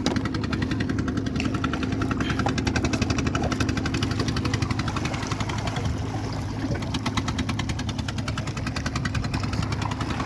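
A small engine running steadily at an even speed, with a fast regular pulsing.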